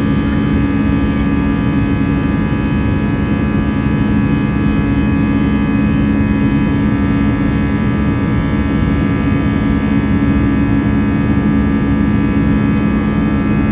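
Airbus A320 passenger cabin during the climb after take-off: the jet engines run steadily, heard as a loud, even drone with a strong low hum and several steady higher whines.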